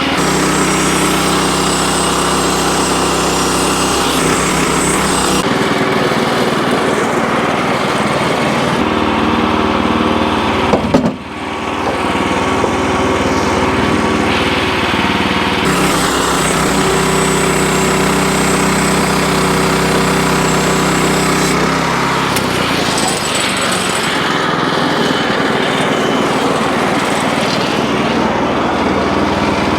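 Wood-Mizer LX25 portable band sawmill running on its small gasoline engine while sawing red oak. The engine note shifts several times under changing load, with a brief drop about eleven seconds in.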